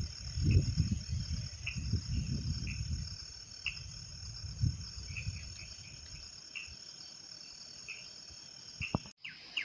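Night insects, crickets among them, chirring steadily in a high continuous trill, with short chirps repeating about every second over it. A low, gusty rumble on the microphone sits under it for the first few seconds and dies away about six seconds in. Near the end the sound cuts abruptly to birds chirping.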